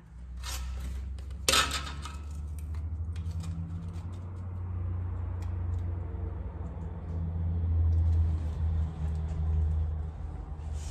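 A low, steady machine drone starts and runs on, wavering in level, with two sharp metallic clacks in the first two seconds.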